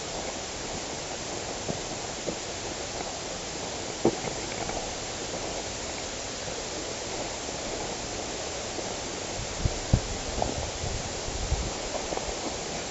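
Steady outdoor background hiss with a few faint, scattered knocks and taps.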